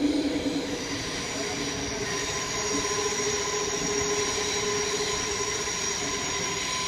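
Canada Line SkyTrain car running between stations, heard from inside the car: a steady rumble with a steady high-pitched whine laid over it.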